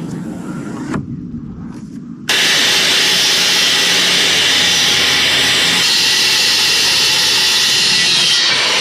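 A low rumble, then about two seconds in a loud, steady machine noise cuts in suddenly and keeps running.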